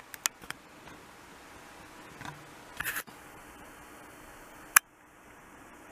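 Faint background noise with a few light clicks near the start, a brief rustle, and one sharp click near the end. A faint steady high whine comes in about three seconds in.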